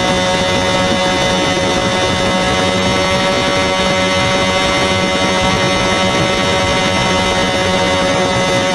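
Yamaha R1 inline-four engine held flat out at top speed, around 299 km/h, on one unchanging high-revving note, with wind rushing over the microphone.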